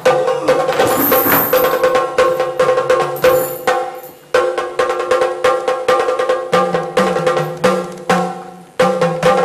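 Background music of rapid percussion strikes over a steady drone, fading off about four seconds in and again near the end and starting again sharply each time.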